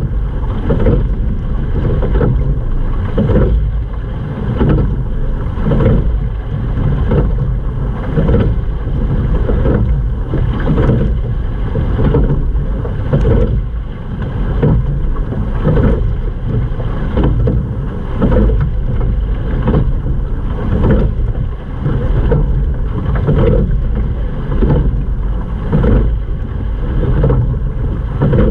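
Sculling boat under way: water rushing along the hull, surging about every two and a half seconds with each oar stroke, over a steady rumble of wind on the microphone.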